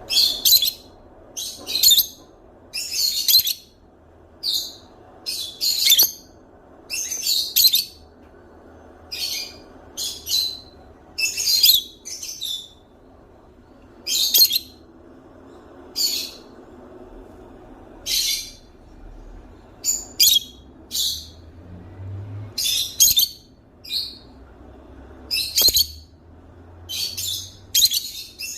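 A parrot giving short, high-pitched calls over and over, roughly one a second, some coming in quick pairs or threes.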